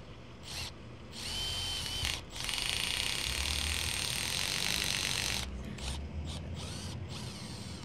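Power drill running in bursts, driving screws: a brief burst, a run of about a second, a longer run of about three seconds, then a few short pulses.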